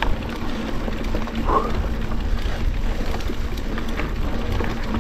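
Wind buffeting a chest-mounted GoPro microphone while riding a mountain bike, with the knobbly tyres rolling over dry dirt: a steady noisy rumble.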